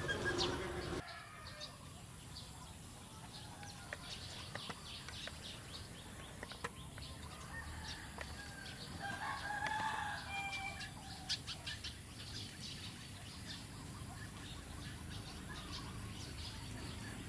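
A rooster crows once, about nine seconds in, over a farmyard background of chickens clucking and scattered short bird chirps.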